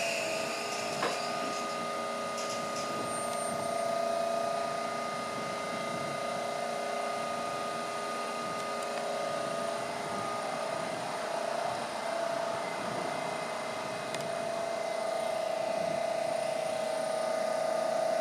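Odakyu 5000 series electric train standing at the platform, giving off a steady electrical hum made of several held tones, with one faint click about a second in.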